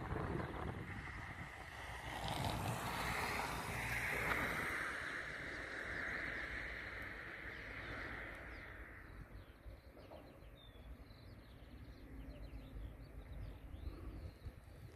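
A vehicle passing by on a road: a rushing noise that swells over the first few seconds and fades away by about the middle. After it come faint, scattered bird chirps.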